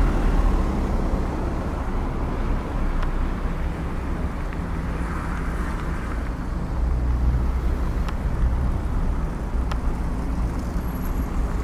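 Traffic noise heard from a road bike riding between lanes of jammed cars: a steady low rumble of car engines and tyres, with a few faint clicks.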